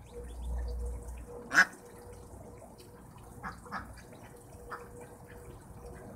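Domestic ducks quacking: one short, loud quack about a second and a half in, then a few softer quacks, over light dripping and splashing from ducklings dabbling in a shallow water tray.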